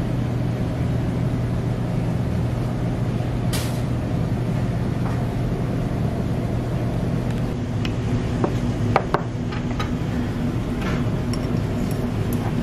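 Restaurant ambience: a steady low hum, with a few light clinks of tableware and chopsticks on a ceramic dish in the second half.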